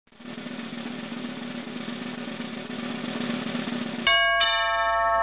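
Advert intro music: a drum roll building slowly for about four seconds, then cutting to a bright chime of held bell-like tones about four seconds in, with more tones joining a moment later.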